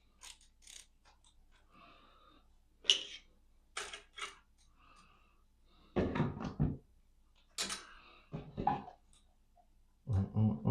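Scattered clicks and knocks of rifle parts being handled and fitted by hand, the sharpest about three seconds in, with a denser run of heavier knocks around six seconds in.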